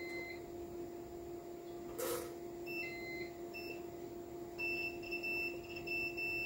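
Short, high electronic beeps from a digital multimeter's continuity tester as its probes touch the energizer's fuses. A few single beeps at two pitches come first, then a broken run of beeps near the end. Beneath them runs a steady low hum, and a brief handling noise comes about two seconds in.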